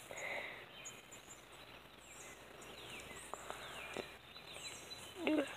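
Faint outdoor ambience with distant birds chirping in short falling notes, a couple of soft knocks from the phone being handled, and a brief vocal sound just before the end.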